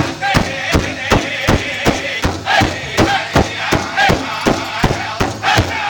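Powwow big drum struck in unison by several drummers, a steady beat of nearly three strikes a second, with the group singing a high, wavering chant over it.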